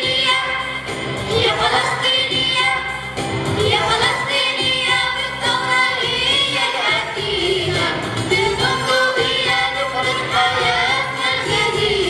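Young choir singing an Arabic nasheed together, accompanied by oud and electronic keyboard.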